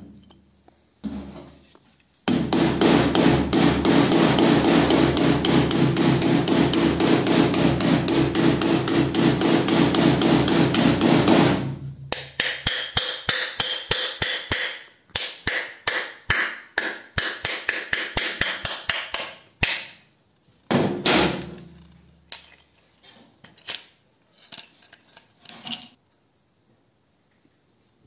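Hammer blows on the steel parts of a pneumatic drill, struck through a punch: a fast, even run of blows for about ten seconds, then slower single strikes, about two a second, that thin out to a few last knocks.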